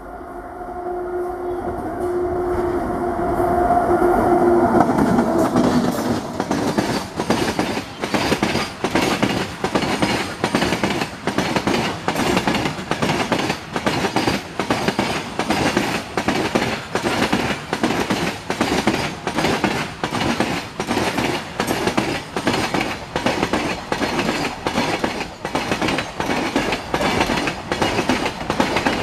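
Freight train passing close by: a WAG-9 electric locomotive goes past with a steady tone that drops in pitch as it passes, then its long rake of covered goods wagons rolls by with a regular clickety-clack of wheels over the rail joints, about one and a half clacks a second.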